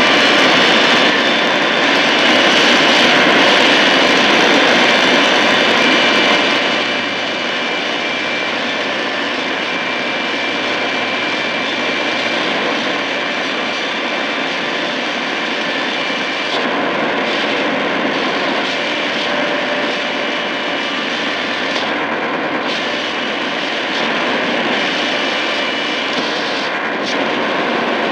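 Shortwave static from a Tecsun PL-880 receiver's speaker as it is tuned up the 49-metre band between stations: a steady loud hiss with faint steady whistling tones in it. It drops a little in level about seven seconds in.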